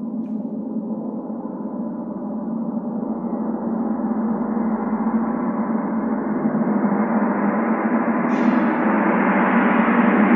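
Gong played as a sustained roll, its shimmering wash of ringing tones swelling steadily louder and brighter, with a brief bright flare about eight seconds in.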